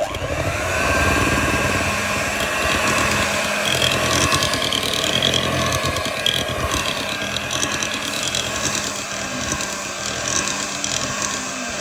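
Electric hand mixer switched on and running steadily, its twin metal beaters churning flour into a soft butter cookie dough.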